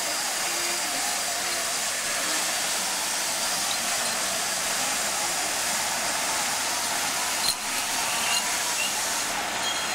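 Mobile crane running steadily as it hoists a sailboat mast, a constant hiss-like noise, with a single knock about seven and a half seconds in.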